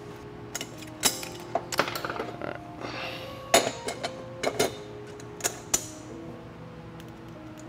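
Metal parts of a Ford 10R80 automatic transmission clinking and knocking against each other as they are fitted together by hand, several sharp clinks spread through the stretch, over steady background music.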